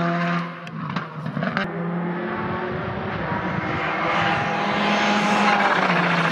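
Škoda Fabia Rally2 rally cars' turbocharged four-cylinder engines at full throttle. First one car pulls away and fades, with a few sharp cracks about a second in. Then another comes on at speed, its engine and tyre noise growing steadily louder as it approaches.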